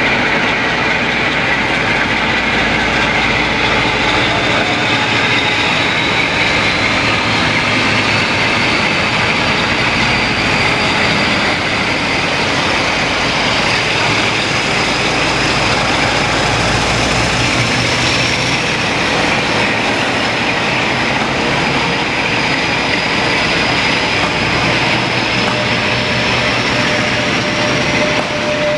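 Class 47 diesel locomotive 47760, with its Sulzer twelve-cylinder engine, working hard as it hauls a charter train past at close range and pulls away, followed by the coaches rolling by. Throughout, a high whine rises slowly in pitch.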